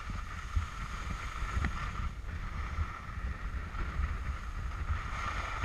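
Wind buffeting the microphone of a camera carried downhill on skis, with the steady hiss and scrape of skis running over groomed snow.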